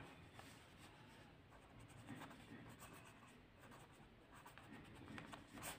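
Faint scratching of a pen writing words on paper, in short strokes.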